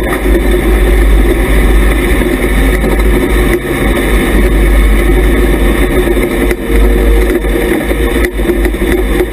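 Hobby stock race car's engine running hard at racing speed, loud from inside the cockpit, with a few short knocks and rattles from the car over the dirt track.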